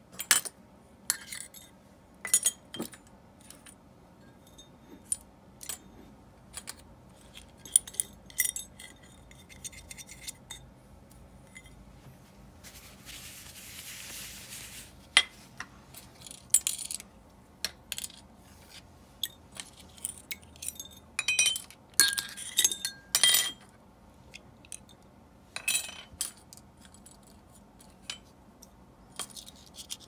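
Small metal parts and tools of an Abu Garcia Ambassadeur 1500C baitcasting reel clinking and tapping in irregular light clicks as the reel is worked on by hand. About thirteen seconds in, a steady hiss lasts about two seconds.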